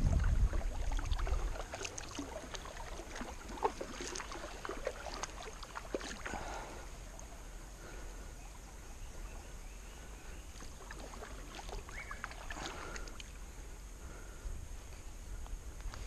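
Kayak paddle working calm river water: soft splashes from slow strokes a few seconds apart, with faint drips and ticks off the blade. Wind buffets the microphone in the first second or two.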